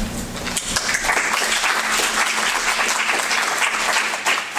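Audience applause: many hands clapping, building up about a second in and carrying on steadily.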